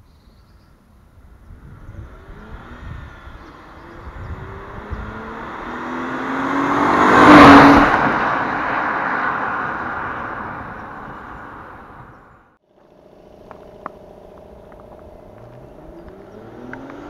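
BMW E92 325i's N53 3.0-litre straight-six exhaust as the car accelerates past, loudest about seven and a half seconds in, then fading away. After a brief break the engine runs steadily with a few sharp clicks, and begins to rev up near the end.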